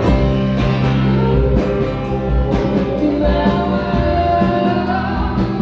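Rock band playing a song live: guitars and bass holding chords with drum hits about once a second, in a short break between sung lines.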